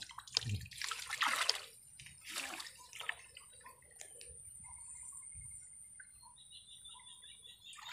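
Shallow canal water splashing and sloshing as a man wades through it and probes with an electric-fishing rod, with several splashes in the first three seconds. After that it goes quieter, leaving a faint, steady high whine and a quick run of high ticks.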